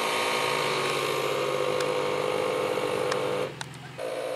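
Vehicle engine running steadily. It drops out about three and a half seconds in and comes back with a different pitch just before the end.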